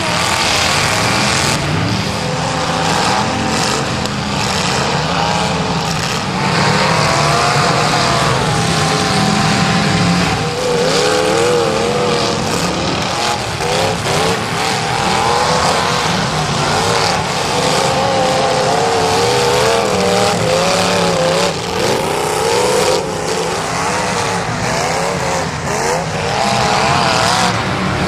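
Several demolition derby cars racing hard on a dirt track, their engines revving up and down in a shifting chorus, with occasional knocks.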